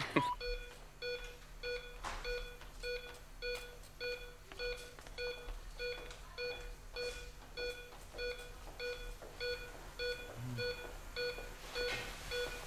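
Hospital patient monitor beeping in a rapid, even series, about two and a half short electronic beeps a second, over a faint steady hum.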